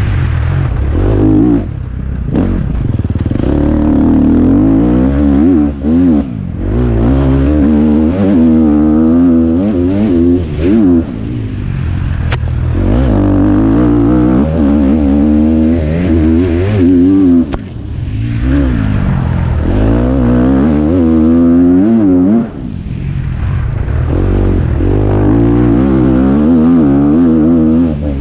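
KTM 250 SX-F dirt bike's single-cylinder four-stroke engine under hard riding, its pitch rising and falling again and again as the rider opens and closes the throttle and shifts gears, with brief drops where the throttle is shut. Two short sharp clicks come partway through.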